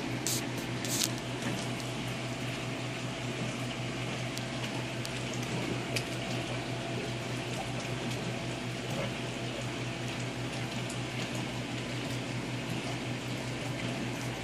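Water running and bubbling steadily into a stock-tank aquarium from its filter return pipe, over a low steady hum. A couple of short clicks come about a second in.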